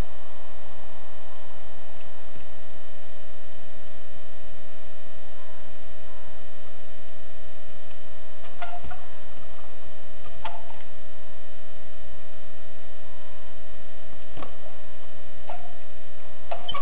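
Steady electrical hum from the camera's own recording. Over it come several short, sharp knocks, with long gaps between them, as a trials bike's tyres hop and land on stacked rubber tyres and a concrete pipe.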